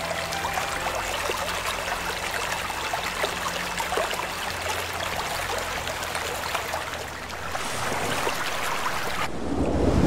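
Shallow mountain stream splashing and gurgling over rocks, heard close up as a dense bubbling patter. Near the end the high splashing cuts off and a deeper, louder rushing takes over.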